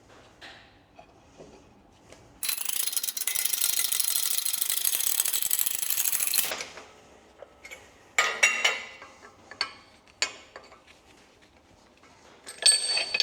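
A ratchet tool clicking rapidly and steadily for about four seconds, driving the improvised press that forces the old bush out of the steel toe arm. A few sharp metal clinks follow, the loudest near the end.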